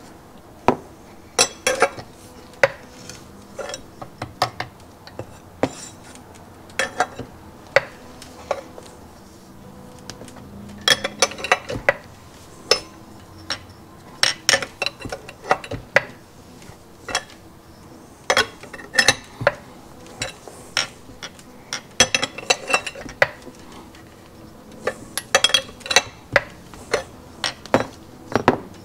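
Repeated sharp metallic clinks and clicks, coming in short clusters, from a wrench working a threaded crankshaft installer tool as the crankshaft of a 1970 Yamaha HS1 90cc twin is drawn into its crankcase.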